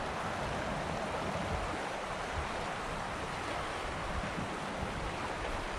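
River current running, a steady even rush of water.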